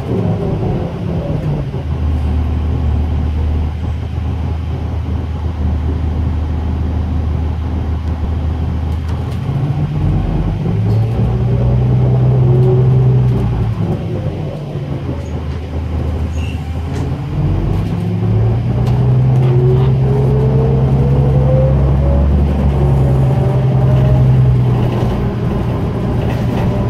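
Ride noise inside a 2004 New Flyer DE40LF diesel-electric hybrid bus: the Cummins ISL diesel gives a steady low hum that steps up and down between a few fixed levels. Over it the Allison E Drive hybrid system makes a whine that rises as the bus speeds up and falls as it slows, with a long rise in the second half.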